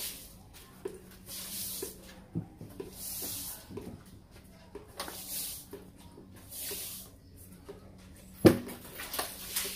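A broom sweeping a wet tiled floor, a swish about every second and a half, with light clicks between strokes and one sharp knock about eight and a half seconds in.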